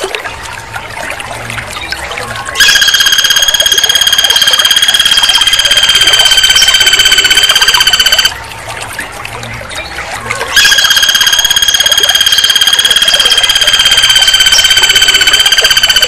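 Flameback woodpecker calling: a loud, rapid, even-pitched trill held for about five and a half seconds, starting about two and a half seconds in, then again about two seconds after it stops.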